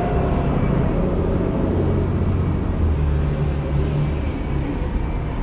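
Steady street traffic noise, a low rumble of passing vehicles.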